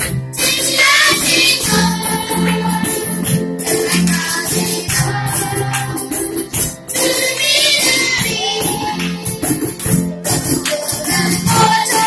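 Children's choir singing a song together to live accompaniment of cajons, keyboard and strummed string instruments, over a steady rhythmic percussion beat.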